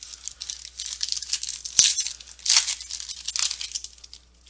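Foil wrapper of a football trading-card pack being torn open and crinkled by hand: a run of crackling rips and rustles, loudest twice near the middle.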